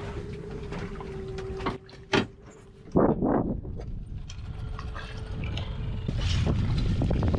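A steady hum with a couple of knocks, then from about three seconds in wind buffeting the microphone over open water, gusting and growing stronger near the end.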